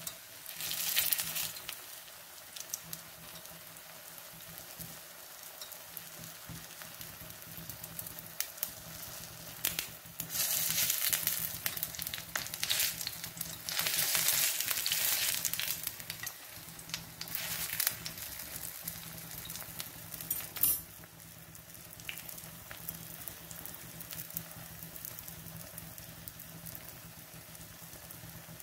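Wheat unniyappam frying in oil in a multi-cup unniyappam pan: a steady sizzle that flares louder in several stretches, about a second in and again around ten to eighteen seconds in, while the balls are turned with a metal skewer. A short sharp click about twenty seconds in.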